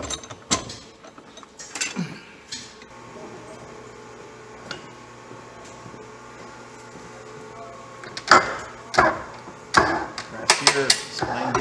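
Sharp metal knocks and clanks from a hand-lever arbor press and the parts under it as the splined gear hub of a Bridgeport step-pulley head is pressed out of its bull gear housing. The loudest strikes come in a cluster in the last few seconds. A faint steady machine hum from the shop runs underneath.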